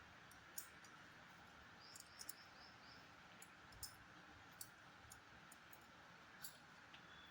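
Near silence: a steady faint hiss with sparse, irregular small clicks.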